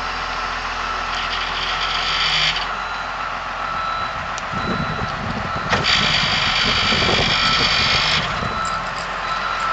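Wheel loader running under load as its hydraulic tree spade lifts a large tree's root ball out of the ground. There are two louder stretches of straining noise, about a second in and again past the middle, with a lower rumble between them.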